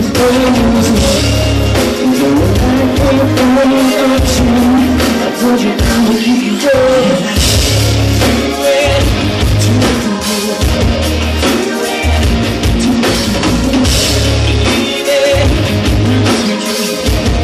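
Live rock band playing loudly: electric guitars, bass and drum kit with a sung lead vocal, heard from among the audience in a concert hall.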